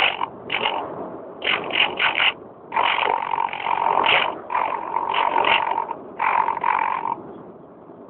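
Electric motor and propeller of an RC Easy Star plane, heard through the onboard phone's microphone, buzzing in bursts as the throttle is blipped on and off: short blips at first, then longer runs with a steady whine, stopping about seven seconds in and leaving a steady hiss.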